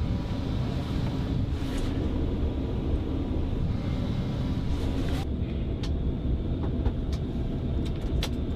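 Steady low rumble of a private jet's cabin noise, engines and airflow heard from inside. About five seconds in the higher hiss drops away suddenly, leaving the low rumble and a few faint ticks.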